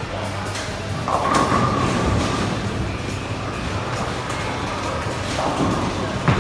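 Bowling alley din: a bowling ball rumbling down the lane, with a clatter of pins about a second in. Near the end there is a sharp thud as another bowler's ball lands on a lane.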